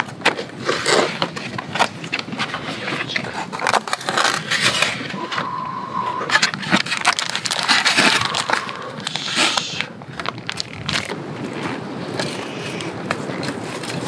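Cardboard gift box being opened by hand and plastic food packaging rustling and crinkling as packs are lifted out, in repeated bursts with scattered clicks and a brief steady note about five seconds in.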